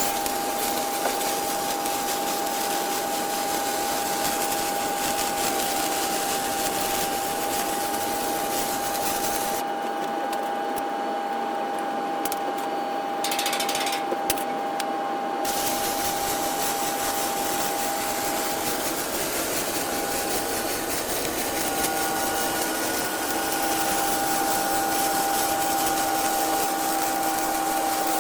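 Flux-core arc welding: the arc's steady hiss runs over a steady machine hum with a held tone. About ten seconds in, the arc stops for several seconds, with two brief restarts, then runs on.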